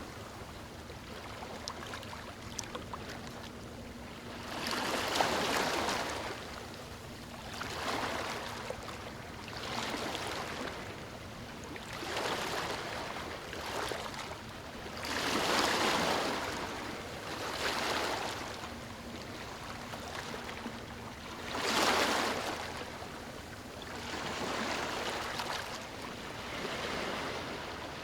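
Ocean surf breaking and washing up a beach, a rolling wash of noise that swells and falls back every few seconds. Two waves break harder than the rest, about halfway through and again about three quarters of the way in.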